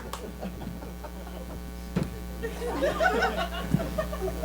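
Steady electrical mains hum from the sound system, with a single knock about two seconds in and faint voices and chuckles from the audience.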